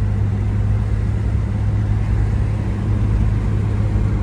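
1994 Chevrolet S10 Blazer's 4.3-litre V6 running steadily while driving, with road noise: an even, low drone that does not change.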